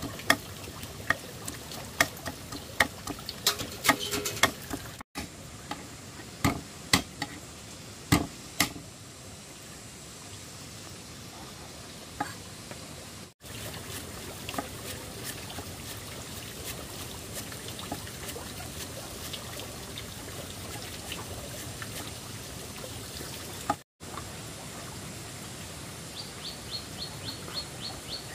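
Water pouring and trickling, with many sharp clicks and knocks over the first stretch. Near the end a bird chirps quickly over and over.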